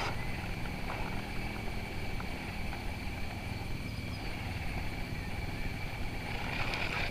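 Wind rumbling on an action camera's microphone, with a faint steady high tone over it.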